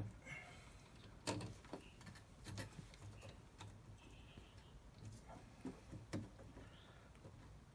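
Faint, irregular clicks and taps of electrical wires and twist-on wire nuts being handled and twisted together, with a few faint short chirps in between.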